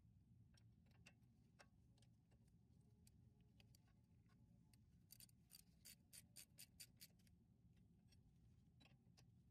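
Faint clicking of a socket ratchet tightening a brake caliper guide pin bolt, with a quick run of about ten clicks, roughly five a second, about five seconds in, and a few scattered single ticks of tools on the caliper.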